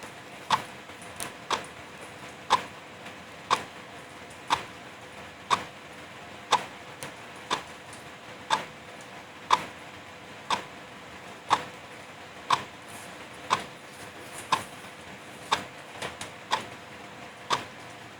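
Wall clock ticking about once a second, each tick sharp and clear, over the steady hiss of light drizzle.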